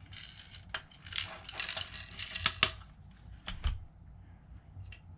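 Small screw and plastic parts of a drone remote controller being handled and fitted back together: a dense run of small clicks and rattles for about three seconds, then a few separate sharp clicks.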